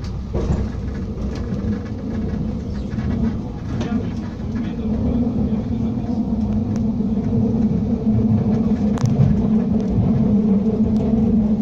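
A TER regional train running, heard from inside the carriage: a steady rumble with a low hum that grows a little louder, and a few sharp clicks.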